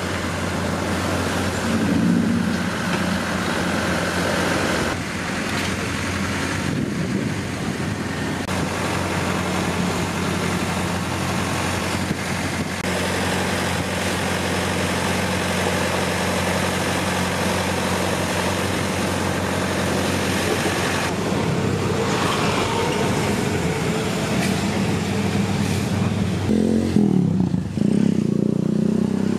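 An asphalt paver's engine running steadily, a low even hum, at a road paving job. Near the end a louder, wavering sound rises over it for a couple of seconds.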